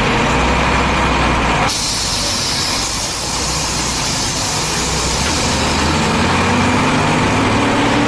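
Mercedes-Benz diesel bus engine running steadily. A hiss over the engine sound drops away suddenly about two seconds in, and the engine note rises a little near the end.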